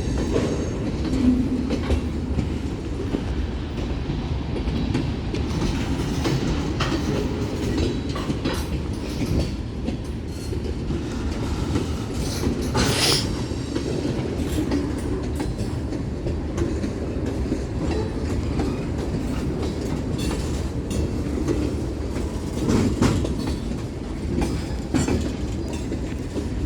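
Freight cars of a manifest freight train rolling past, with a steady low rumble and an irregular run of wheel clicks and clanks over the rail joints. The loudest clank comes about halfway through.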